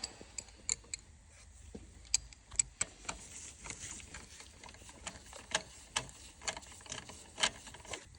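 Socket wrench tightening a bolt on a car's belt tensioner: irregular sharp metal clicks and ticks, a few of them louder, as the tool is worked.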